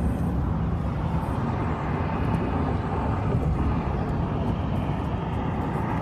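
Steady road and wind noise inside a car cruising at highway speed: a low rumble with a hiss over it.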